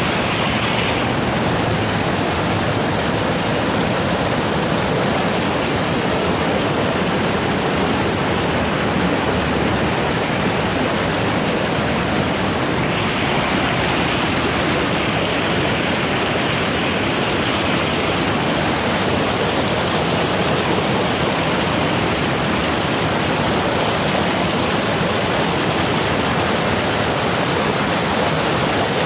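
Shallow creek water rushing over a small rocky cascade: a steady, unbroken rushing noise.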